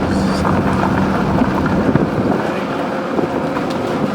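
Car engine and road noise heard from inside a moving car: a steady rumble with a low drone that shifts in pitch about halfway through.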